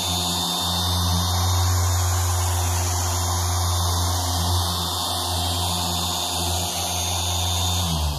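ChemicalWorkz DA9 Pro Max dual-action polisher (1000 W motor, 9 mm throw) running steadily with a foam pad on car paint. It is pressed down hard and keeps turning without bogging down. It is switched off at the very end and winds down.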